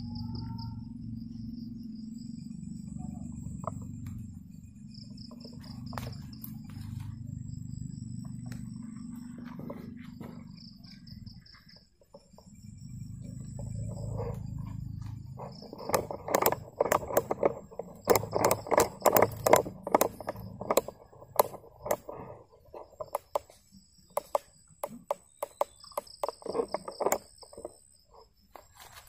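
Crickets and other night insects chirping in repeated pulses over a low rumble. From about halfway through, a long run of loud rustling and crackling: someone pushing through dense undergrowth.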